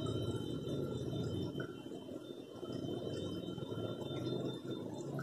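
Steady bubbling and gurgling of water in a small aquarium tank, with a faint steady high whine underneath.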